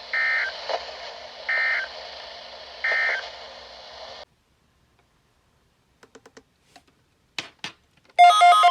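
Three short bursts of EAS/SAME digital data tones, about a second and a half apart: the end-of-message code that closes an emergency alert, over radio static that cuts off about four seconds in. A few faint clicks follow, and near the end a louder burst of data tones starts, the SAME header of the next alert.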